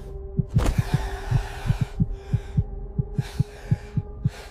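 Sound-effect heartbeat thumping fast and a little unevenly, about four to five beats a second, a racing heart in distress. Under it runs a steady low hum, and swells of hissing noise come and go.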